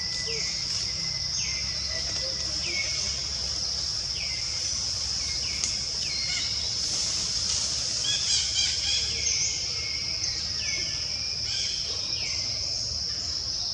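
Forest ambience: a steady, high-pitched insect drone, with a bird repeating a short downward-sliding call about once a second and a busier, louder flurry of calls about eight seconds in.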